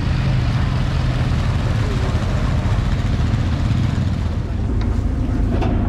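Off-road vehicle engine running steadily with a deep rumble, mixed with a haze of wind and driving noise, and a short knock near the end.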